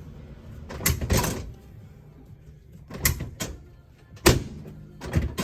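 Short knocks and thuds during a chiropractic adjustment: two around one second in, two around three seconds in, and the sharpest, loudest one about four seconds in, with another near the end.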